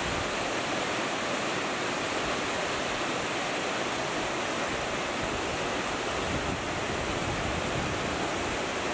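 Water pouring over a low concrete weir into a river: a steady, even rushing.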